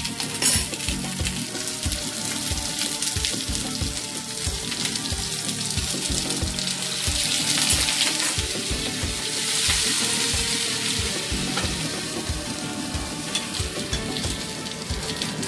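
Bibigo dumplings sizzling and crackling in hot oil in a nonstick frying pan, swelling louder in the middle. A single sharp click comes about half a second in.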